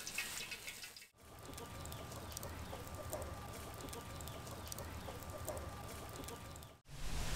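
Chickens clucking and small birds chirping over a low, steady rumble. The sound cuts out briefly about a second in and again near the end.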